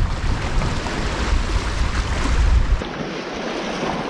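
Wind buffeting the microphone over sea waves washing and splashing against shore rocks. About three seconds in, the wind rumble drops away, leaving the quieter wash of the water.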